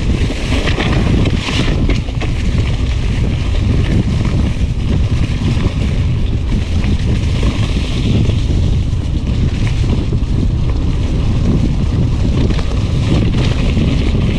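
Wind buffeting the microphone: a loud, steady low rumble with hiss above it, no let-up.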